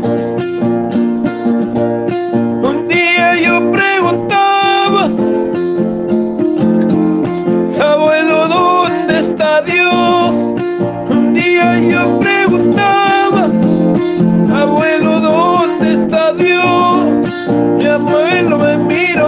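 Acoustic guitar strummed in a steady rhythm, with a wavering melody line laid over it in phrases that come and go.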